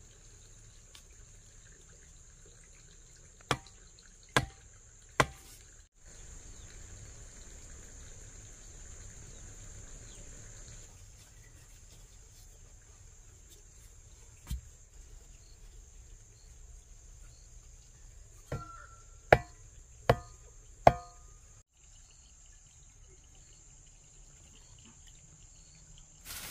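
A long metal bar rammed down into the ground, each blow a sharp thud with a short metallic ring: three about a second apart, a single one midway, then four in quick succession near the end. Insects keep up a steady high buzz behind it.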